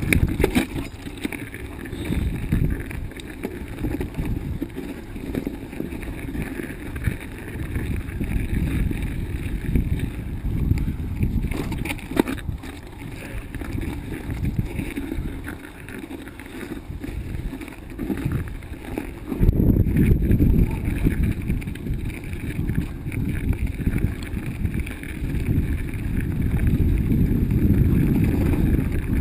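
Wind rushing over the microphone and rumble from a bicycle ridden over a rough, snowy trail, with a few sharp knocks from the bike. The rumble gets louder about two-thirds of the way in.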